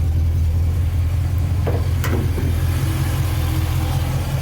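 Chrysler 318 V8 of a 1980 Dodge D300 idling steadily through a single exhaust with a glasspack muffler, with a torque cam and two-barrel carburettor. A light click comes about two seconds in.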